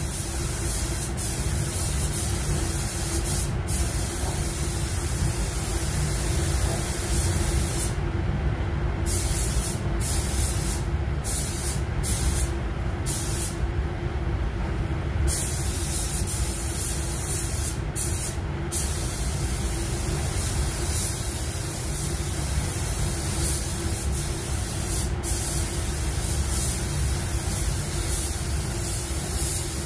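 Gravity-feed paint spray gun hissing as pearl white basecoat is sprayed, the hiss cutting out briefly many times as the trigger is let go between passes. A steady low hum runs underneath.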